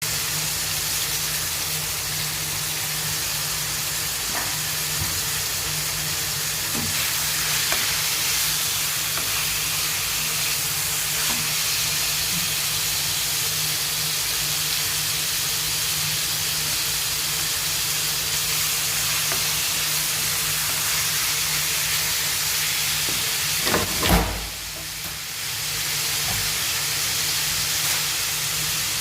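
Chicken sizzling as it sautés in a hot pan: a steady frying hiss over a low hum. About twenty-four seconds in there are a few knocks and the sizzle briefly drops, then comes back.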